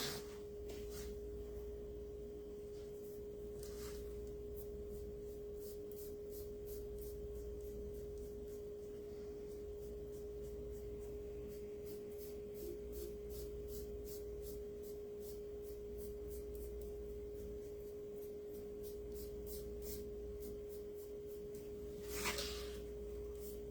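A steady hum at a single pitch, with faint scattered ticks over it.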